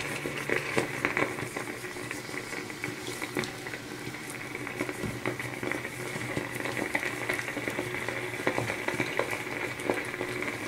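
Facial steamer running, a steady boiling, bubbling sound with many small pops and ticks.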